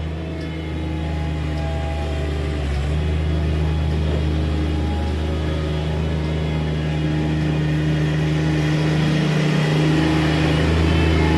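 Engine of a Bobcat MT100 stand-on mini skid steer running steadily, growing a little louder toward the end.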